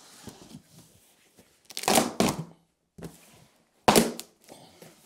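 Cardboard shipping box being opened, packing tape ripped off the cardboard, with two loud rips about two seconds in and about four seconds in and cardboard rustling between them.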